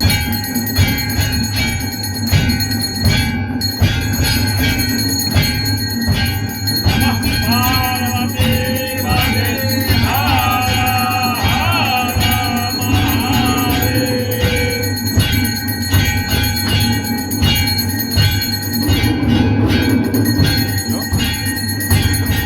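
Hindu temple aarti: bells ringing continuously over a fast, steady clanging percussion beat, with voices singing from about 8 to 14 seconds in.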